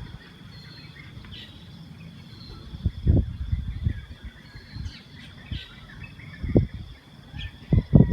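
Outdoor ambience: birds chirping now and then over a faint steady high-pitched tone. Gusts of wind rumble on the microphone, the loudest about three seconds in, about six and a half seconds in, and near the end.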